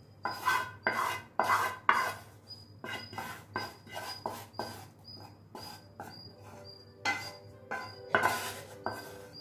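Wooden spatula scraping roasted gram flour paste out of a pan into a glass bowl: a run of short scrapes and knocks, a few a second, the loudest in the first two seconds and again near the end.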